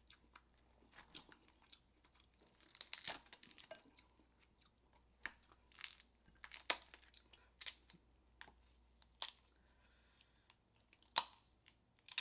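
Snow crab shells being cracked and snapped open by hand, a series of sharp cracks at uneven intervals, with close-miked chewing and crunching of crab meat between them.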